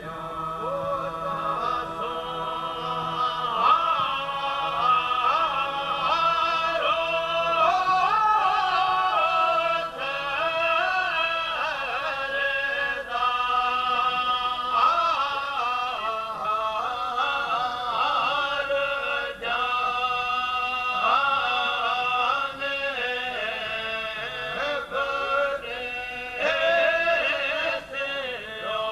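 Men's voices chanting a devotional maulud (mawlid) hymn in a continuous melodic line with drawn-out, wavering notes.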